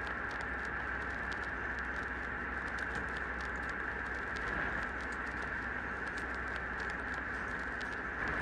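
Puppy suckling at its mother's teat: many small, irregular wet clicks and smacks over a steady high-pitched hum.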